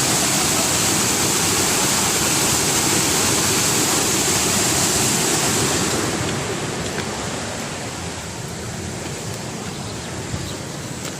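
Waterfall: a steady rush of falling water that drops to a lower, duller level about six seconds in.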